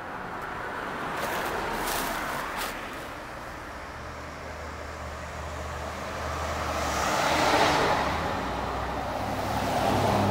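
Cars passing on a street, their tyre and engine noise swelling and fading. The loudest pass comes about seven to eight seconds in, with a low engine hum under it, and another swells up near the end.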